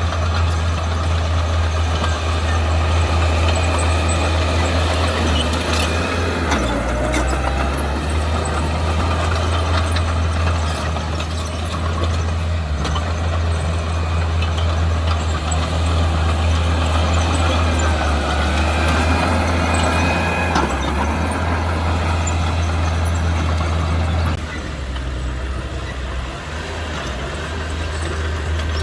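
Heavy diesel engine running steadily with a deep, even drone and mechanical clatter. It gets quieter suddenly about 24 seconds in.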